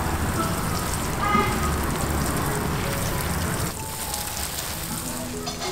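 Water sprinkling from a plastic watering can onto plants and soil: a steady hiss of falling water that gets quieter about two-thirds of the way through.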